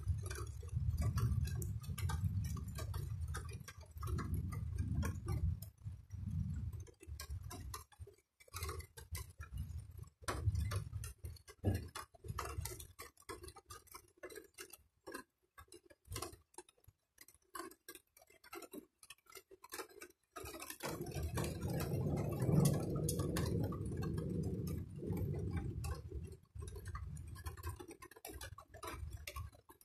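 Raindrops falling on a hard surface close to the microphone, giving an irregular patter of sharp drips and ticks. Under them, distant thunder rolls as low rumbles, with a longer, louder roll about two-thirds of the way through.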